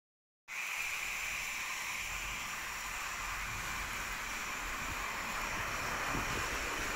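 Steady hiss of water from a garden hose's shower nozzle falling on soil and plant leaves, starting about half a second in.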